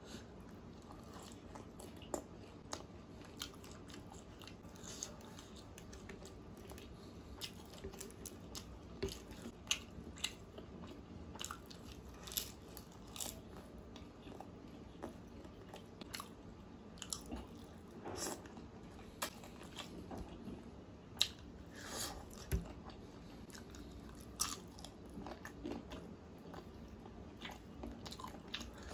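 Close-miked chewing and biting of chicken curry and butter naan eaten by hand, with many irregular wet smacks and clicks.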